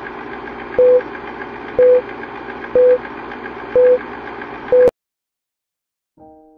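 Old-film countdown leader sound effect: a steady film-projector whir with light clatter, and a short beep once a second, five beeps in all, cutting off abruptly about five seconds in.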